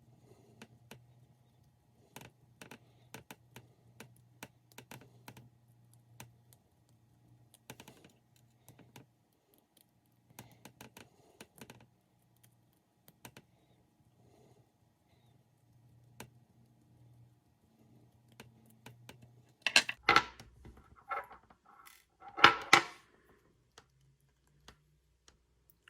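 Small scattered clicks and taps of a hand driver working tiny screws out of an RC crawler's metal motor plate, with small parts being handled. About two-thirds of the way in come two louder clattering rattles of metal parts or the tool.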